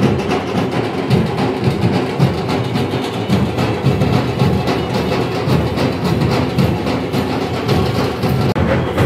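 Loud music from a street procession, dominated by heavy drumming with rapid, continuous drum strikes.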